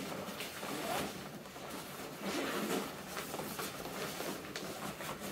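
Irregular rustling and shuffling of nylon backpacks and gear being rummaged through by hand, with a few soft knocks.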